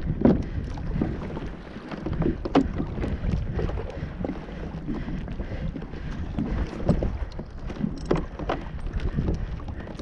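Wind buffeting the microphone with a steady low rumble, over choppy water slapping against a plastic kayak hull, with irregular small knocks and splashes throughout.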